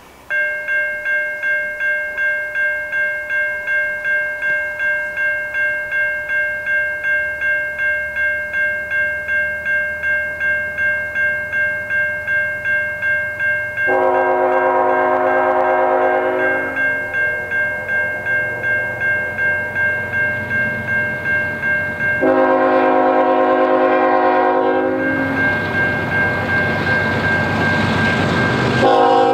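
Level-crossing warning bell ringing steadily at about two strokes a second, with two long blasts of the CN ET44AC locomotive's air horn about eight seconds apart as it approaches the crossing. Near the end the rumble of the approaching train rises.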